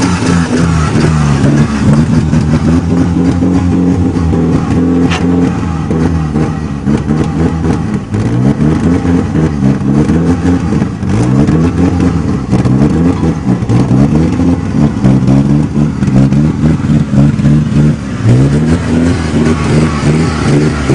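1961 Ford Anglia's four-cylinder engine pulling the car along, revving up and dropping back several times as it is driven through the gears.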